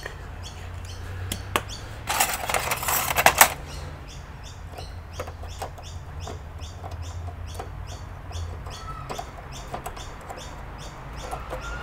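Plastic clicks and a short scraping rush about two seconds in, as a computer's plastic cover is handled and fitted. A regular high chirping repeats about three times a second through the rest, over a steady low hum.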